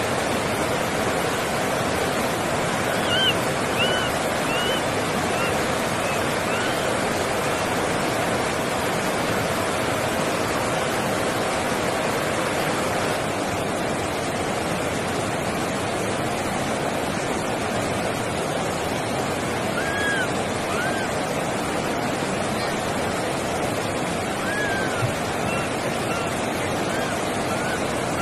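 Steady rushing noise, with faint, short, high, arched cries over it: a few in quick succession about three seconds in, and more around twenty seconds in and near the end. These are typical of a baby macaque calling.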